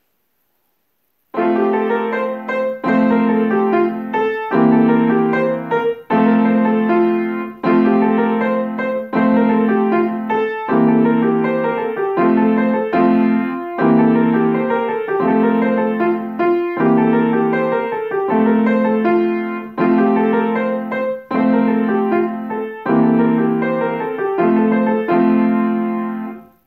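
Grand piano played solo: a short étude in repeating phrases, held low notes under moving broken-chord figures, starting about a second in and dying away on its last chord just before the end.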